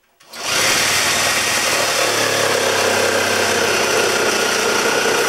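Electric saber saw (jigsaw) starting up about a third of a second in and running steadily as it cuts out a window opening in the wall.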